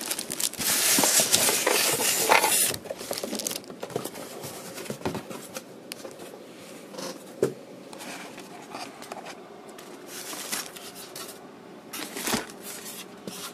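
Clear plastic bag and soft packing material rustling and crinkling as a boxed transistor radio is handled. It is loudest for the first two and a half seconds, then settles into quieter scattered clicks and rustles.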